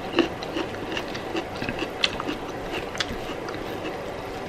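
Eating sounds from a rice-and-curry meal: quiet chewing and scattered small clicks of cutlery against a plate, over a steady low background hum.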